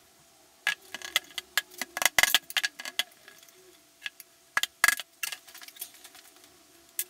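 A run of sharp clicks and knocks from hand tools on a wooden workbench: a rubber mallet and a knife being picked up, used and set down. The knocks come thickest about two seconds in, with a few louder ones near five seconds.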